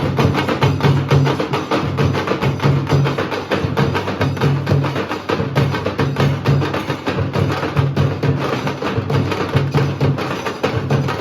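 Nasik dhol drums beaten with sticks in a fast, driving rhythm: deep repeated drum beats under a dense stream of sharp, rapid stick strokes.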